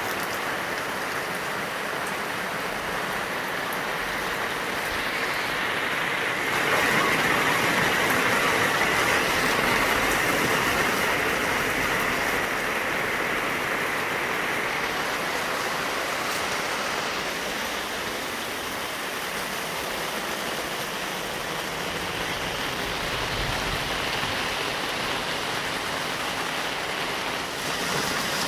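Heavy rain falling in a steady hiss, swelling louder for a few seconds about a quarter of the way in before easing back.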